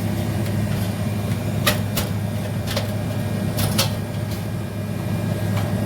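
A steady low machinery hum, with a few short clicks and knocks scattered through it.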